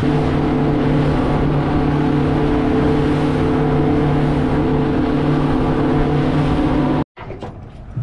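Fishing speedboat's engine running steadily at speed under a rush of wind and water noise, its pitch holding level. It cuts off abruptly about seven seconds in.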